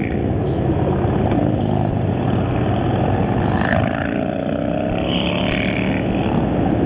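Harley-Davidson V-twin motorcycles riding past in a steady stream. Their engines make a loud, continuous rumble, with the pitch rising briefly around the middle as riders open the throttle.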